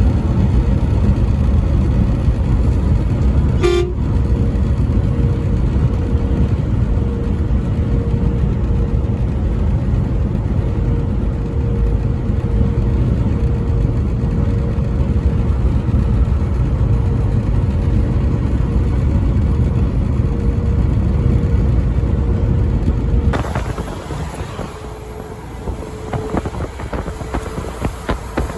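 Road vehicle on the interstate with a heavy, steady low rumble of engine and road noise. Over most of it sits a faint steady single tone like a held horn. About 23 seconds in, the rumble drops sharply and irregular crackling follows.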